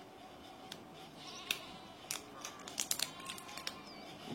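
Small plastic clicks and snaps of an AA battery being fitted into a wireless mouse's battery compartment and the cover handled, a quick irregular run of sharp clicks with a few louder snaps.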